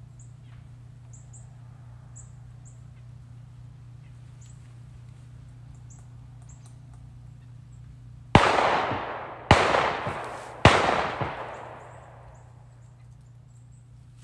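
Three gunshots about a second apart from a deer hunter's gun, each trailing off in a long rolling echo.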